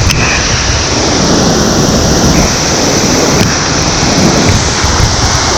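A large waterfall in heavy rainy-season flow: a loud, steady rush of falling water with a deep rumble.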